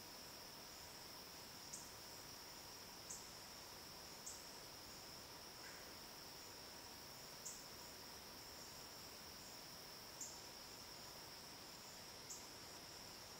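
Faint evening insect chorus: a steady high-pitched trill, with short, higher chirps every one to three seconds.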